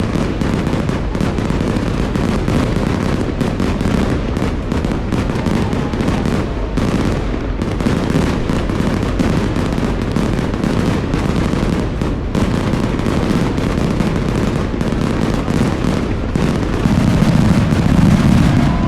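Fireworks going off in rapid succession: a dense, continuous run of cracks and booms, getting a little louder near the end.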